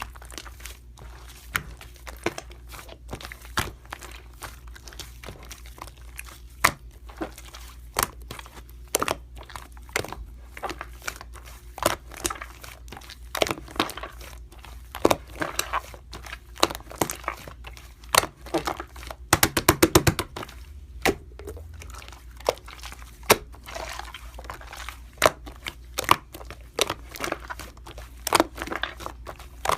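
Slime being squished, pressed and poked by hand, making sticky clicks and crackles, with a quick rattling run of clicks about twenty seconds in.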